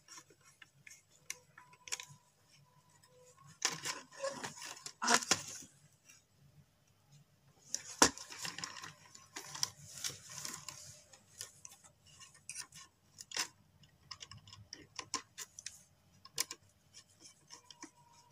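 Small clicks, clinks and rustling of hands wiring a switch-socket board: copper wire being bent and pushed into switch and socket terminals and a screwdriver working the terminal screws. Two stretches of rustling, with a sharp click about eight seconds in.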